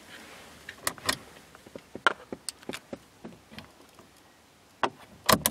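A string of small plastic clicks and snaps from the rear overhead vanity mirror of a Mercedes-Benz W221 S-Class being flipped open and handled, with a loud double click near the end.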